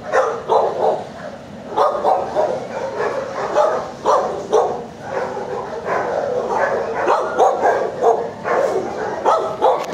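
Dog barking repeatedly: short, loud barks in quick, irregular succession, about two a second.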